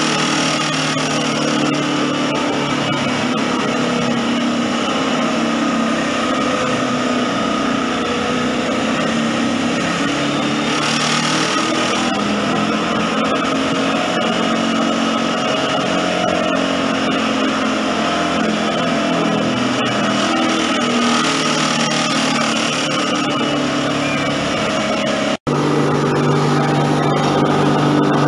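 Electric-motor-driven wood sawdust machine running under load, its rotating blades cutting wood logs into sawdust: a loud, steady mechanical din with a humming drone. About 25 seconds in the sound breaks off for a split second, then the machine carries on running.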